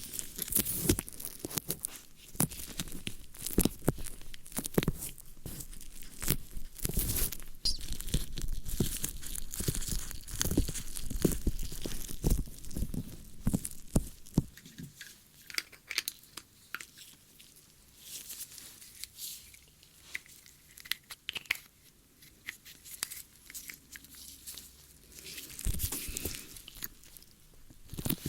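ASMR ear-cleaning sounds: dense, close-up scratching and crackling clicks. About halfway through they turn sparser and quieter, with a brief louder flurry near the end.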